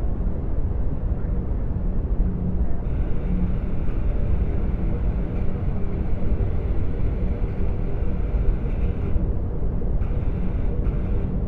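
Sound-designed hyperspace ambience for a Venator-class Star Destroyer's bridge: a steady deep rumble with a low hum. A fainter, higher hiss joins about three seconds in and drops out near the end.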